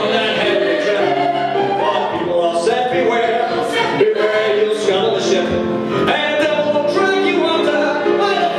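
A male lead and a mixed vocal ensemble sing a show tune together, accompanied by grand piano.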